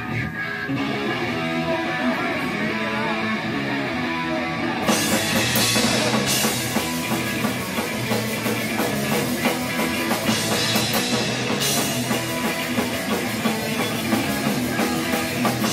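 Punk rock band playing live: distorted electric guitars and a drum kit kick in together at the start of a song and drive through its instrumental intro, the cymbals coming in harder about five seconds in.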